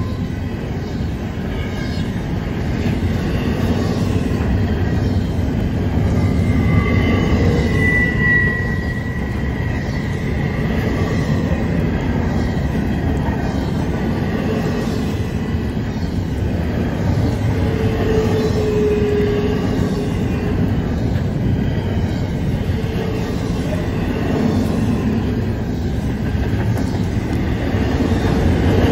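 Double-stack intermodal freight cars rolling steadily past on a curve, a continuous rumble and clatter of steel wheels on rail. A thin, high wheel squeal rises out of it about a quarter of the way through, and a lower squeal follows about two-thirds through, from the wheels grinding against the rail on the curve.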